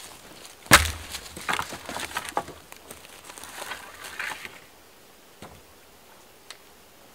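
Dry dead wood breaking: one sharp crack about a second in, followed by a few seconds of smaller snapping and crackling of twigs and branches. It dies away to a few faint ticks.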